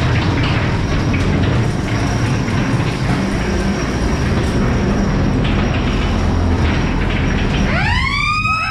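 Ghost train car rumbling and rattling steadily along its track. Near the end a siren-like wail rises quickly and then holds.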